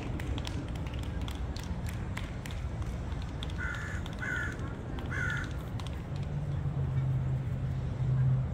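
Three short bird calls in quick succession about four to five seconds in, over a steady low rumble of outdoor background noise. A low steady hum joins about six seconds in.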